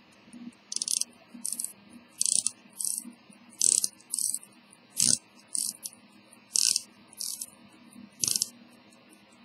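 Victor Kullberg deck watch being wound at the crown: about a dozen short bursts of ratchet clicking from the winding click, roughly one every half second to second. The watch's faint, fast ticking runs underneath.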